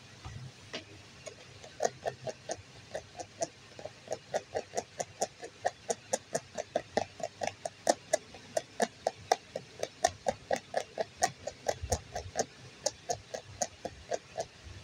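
A plastic spatula stirring a thick, wet batter in a bowl: rhythmic squelching scrapes and clacks against the bowl, about three to four strokes a second, starting about two seconds in.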